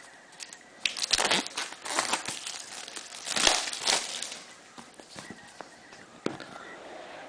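Clear plastic shrink-wrap being torn off a phone box and crumpled in the hands, heard as a run of loud crinkling rustles between about one and four seconds in, then quieter handling.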